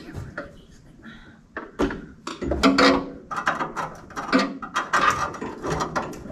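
Irregular clicks, knocks and rattling of car parts and tools being handled, busier from about two seconds in.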